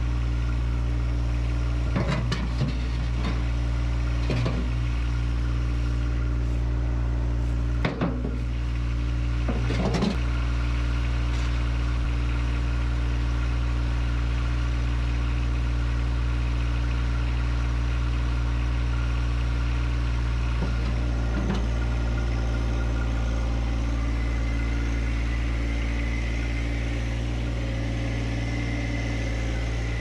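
John Deere 1025R compact tractor's three-cylinder diesel running steadily at idle, with several sharp knocks and thumps in the first ten seconds or so as heavy rocks go into the steel loader bucket. A higher whine comes in over the last few seconds as the tractor drives off.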